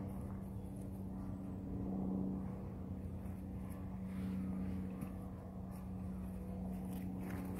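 A steady engine hum that swells a little in loudness a couple of times.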